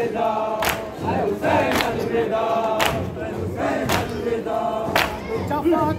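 A crowd of mourners chanting a noha together, with a sharp, loud beat of matam (chest-beating) falling in rhythm about once a second.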